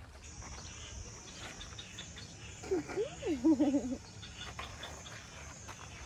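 Insects chirping in a steady high trill. About three seconds in comes a short high voice sound that rises and falls, the loudest thing heard.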